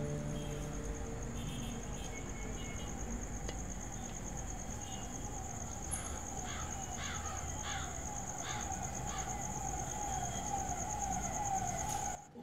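Ambience of the city: a siren wailing and wavering, under a steady high whine, with a run of about six short falling bird calls midway. All of it cuts off abruptly just before the end.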